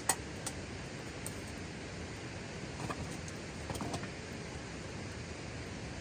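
Steady hiss of autumn rain, with two sharp clicks at the very start, a few faint ticks just after, and a short run of small knocks and rattles about three to four seconds in.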